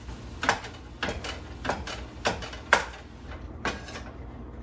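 Wooden spatula knocking against a nonstick skillet while breaking up browning ground turkey: about six sharp knocks, roughly every half second, stopping near the end.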